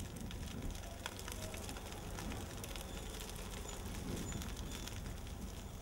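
Dry grass and brush burning, with irregular crackles and pops over a steady low rumble.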